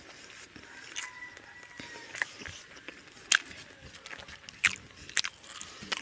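Eating by hand: chewing with about five sharp, wet smacks and clicks, as fingers work rice and chicken on a steel plate.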